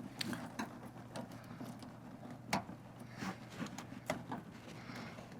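Faint, scattered small clicks and rattles of hands working wires and terminals at a dropped fuse block, the sharpest about two and a half seconds in, over a low steady hum.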